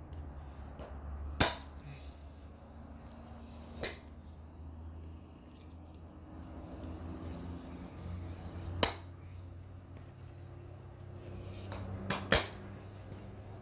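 Sharp metallic clicks of a screwdriver working at a screw lodged in a tyre, four knocks several seconds apart, over a steady low hum.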